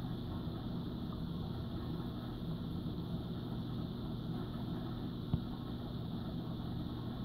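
Marine aquarium pump equipment running with a steady low hum over a faint rush of circulating water; a single click about five seconds in.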